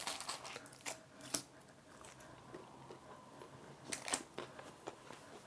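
Faint crunching and crackling of a toasted bread-and-cheese sandwich being broken apart by hand over parchment paper, in a few scattered crisp snaps, clustered about a second in and again around four seconds in.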